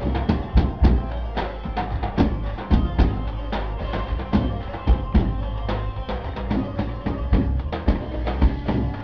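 Lebanese zaffe rhythm beaten on tabal drums: loud, fast, driving strikes, several a second, with a held melody line sounding over them.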